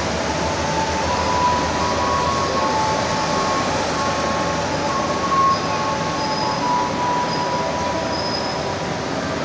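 Prambanan Express commuter train rolling slowly along the platform, a steady rumble with thin high squealing tones that come and go, typical of wheel squeal.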